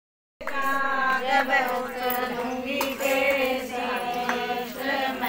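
Women singing a devotional wedding song together. The singing starts just after the beginning, with a sharp tap about every second and a half.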